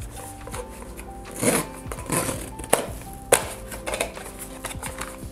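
Small cardboard blind box being opened by hand: paper rustling and a few sharp clicks and taps as the top flap is worked open, the two sharpest about halfway through. Soft background music plays underneath.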